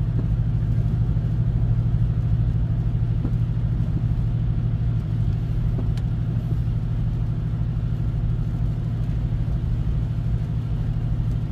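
2023 Ram 1500 with an MBRP aftermarket muffler cruising steadily at 55 mph, heard from inside the cab: a steady, even low exhaust rumble.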